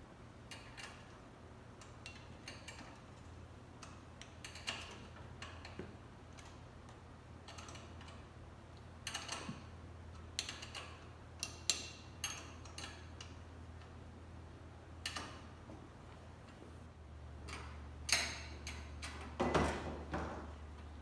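Scattered metallic clicks and clinks of hand tools as nuts are fitted and tightened on the engine mount studs, coming in short clusters, with the loudest near the end. A steady low hum runs underneath.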